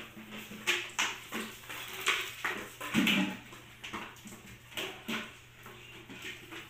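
Pocket bully puppies playing tug-of-war with a rope toy, making short puppy noises, with a plastic bottle and jug knocking and scraping on the concrete floor in irregular bursts.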